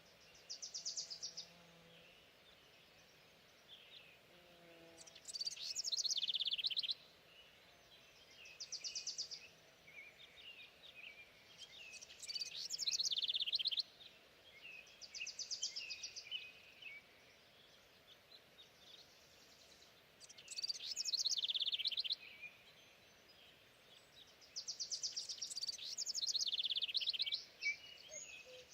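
A songbird singing, repeating high phrases of rapid trills and sweeping notes every few seconds.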